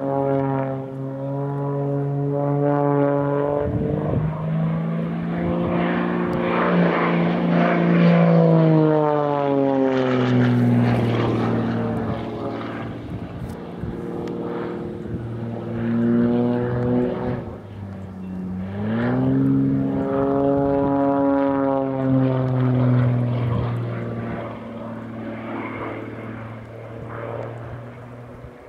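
Extra 330SC aerobatic monoplane's six-cylinder engine and propeller droning through a display routine. The pitch climbs sharply about four seconds in, sinks again around ten seconds, and rises once more after about nineteen seconds as the plane manoeuvres.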